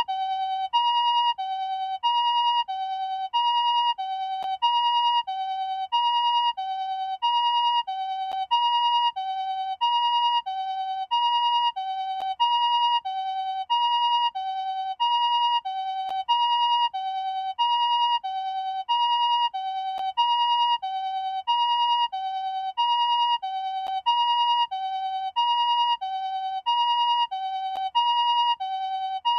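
Japanese ambulance TCD electronic siren sounding its two-tone 'pii-poo' call: a higher tone and a lower tone alternate, each lasting about half a second, repeating steadily.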